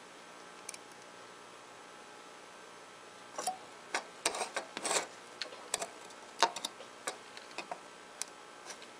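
Light handling noises: a string of short clicks, taps and rubs between about three and seven seconds in, with a few single clicks after, as the circuit board and the close-up view are shifted, over a faint steady background hiss.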